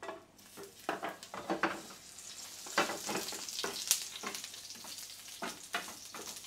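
Garlic cloves sizzling in hot oil in a nonstick frying pan, stirred with a wooden spatula that knocks and scrapes against the pan again and again. The sizzle starts just after the start and grows louder over the first couple of seconds.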